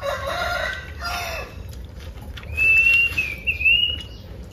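Chickens calling: short pitched calls in the first second and a half, then a long, high, wavering rooster crow from about halfway in, the loudest sound.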